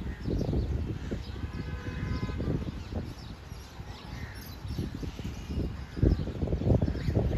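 Birds chirping, crows among them, over a low, uneven rumble. A steady tone of several notes sounds for about a second and a half, starting about a second and a half in.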